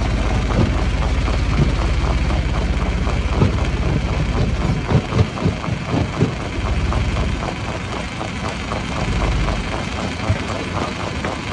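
Stone crusher running: a steady heavy engine drone with many irregular knocks and clatter, busiest in the middle, as rock is broken.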